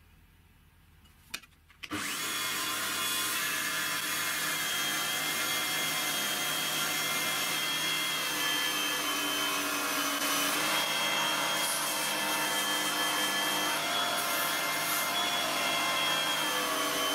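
Homemade belt grinder running, with a steel wood chisel held against the moving abrasive belt and ground: a steady whine of several pitched tones over the hiss of grinding. It comes in suddenly about two seconds in.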